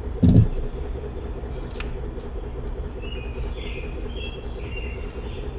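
A single heavy thump a moment after the start, as something is set down on the workbench, over a steady low background rumble. A few faint high chirps follow in the middle.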